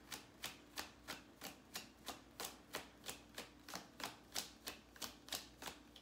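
Tarot deck being overhand shuffled by hand: a steady run of soft card slaps as packets drop from hand to hand, about three a second.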